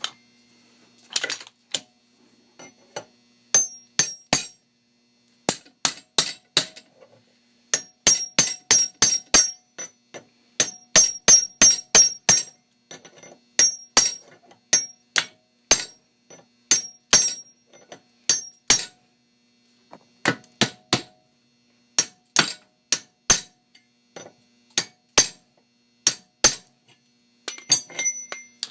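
Hammer driving a cold chisel against the rivets of a Master Lock No. 22 padlock: dozens of sharp metallic blows with a brief ring, in quick runs of several strikes a second with short pauses between. The rivets are soft, not hardened.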